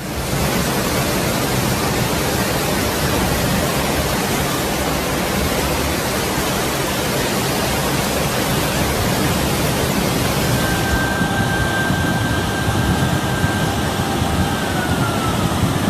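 Loud, steady rushing storm noise, the wash of floodwater, rain or wind, with no speech. About two-thirds in, a thin high tone enters, holds steady, then slides down in pitch near the end.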